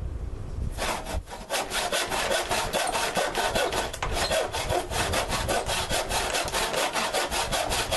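Handsaw cutting a slant into a small 2x4 wood block, in quick, even back-and-forth strokes, about five a second, starting about a second in.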